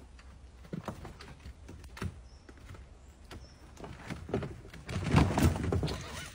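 A dog's paws thudding on a wooden plank: a few separate footfalls, then a louder burst of thuds and rustling near the end as it leaps off into leafy plants.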